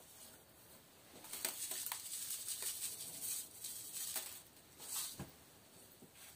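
Salt-and-sugar curing mix sprinkled from a cup onto raw trout fillets in a plastic tub: a grainy hissing patter lasting about three seconds. About five seconds in, a short handling sound as a fillet is laid in.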